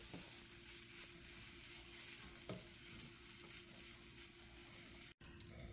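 Couscous mixed with stew sizzling faintly in a frying pan while it is stirred with a wooden spatula, with one light knock of the spatula on the pan about two and a half seconds in. A faint steady hum runs underneath.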